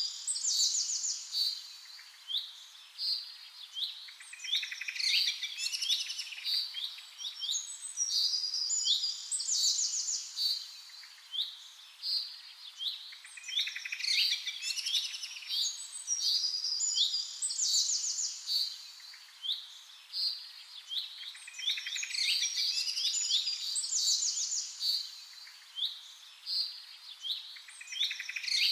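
Birds chirping and trilling in quick overlapping phrases, the same sequence of calls repeating about every nine seconds.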